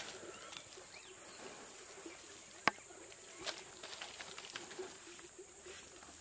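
Soft pats and scuffs of hands working wet clay packed over foil-wrapped food parcels, with one sharp click about two and a half seconds in. A faint, steady, high-pitched tone runs underneath.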